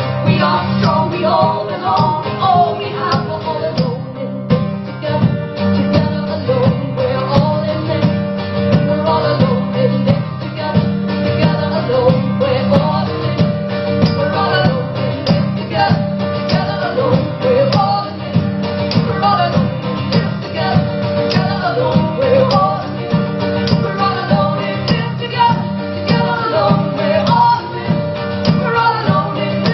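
Live band music mid-song: guitars over a steady beat, with singing.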